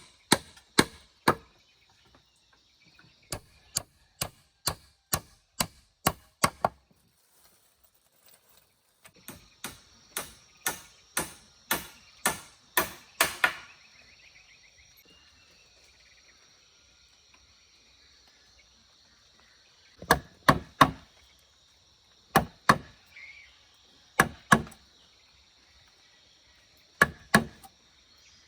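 Hand tool chopping into wood: runs of quick, sharp strikes at about three a second, then slower pairs of strikes a couple of seconds apart. A steady high-pitched drone sits underneath from about a third of the way in.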